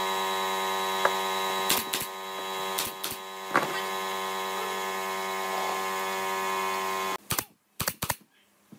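A steady motor hum, from an air compressor, runs with a few light wooden knocks as pine slats are laid on the frame, then cuts off suddenly about seven seconds in. Near the end a pneumatic brad nailer fires several sharp snaps, driving brads into a slat.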